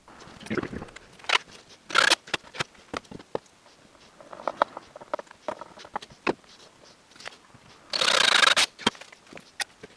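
Handling of a small metal motor-controller box on the build board, with scattered clicks, knocks and short scrapes. About eight seconds in, a cordless drill driver runs for under a second, driving a screw to fasten the box down.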